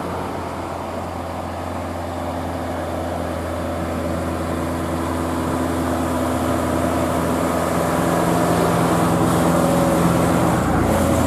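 A bus engine running steadily at constant pitch, growing gradually louder; no horn sounds.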